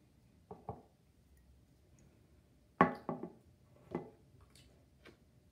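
A Chanel Allure Homme Édition Blanche perfume bottle being handled and set down on a hard, glossy tabletop. There are two faint clicks about half a second in, a sharp knock near three seconds in as it touches down, then a few lighter taps as it is adjusted.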